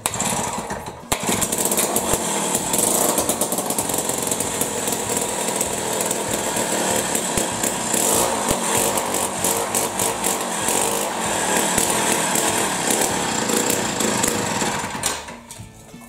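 Jiffy ice auger's Tecumseh AV520 two-stroke engine running steadily at throttle on its freshly rebuilt diaphragm carburetor. It cuts off about fifteen seconds in.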